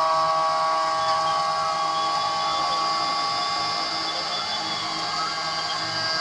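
3040 desktop CNC router milling a circular groove in aluminium plate with a small end mill: a steady high spindle whine mixed with the cutting noise, plus fainter tones that glide up and down as the machine moves along the curve.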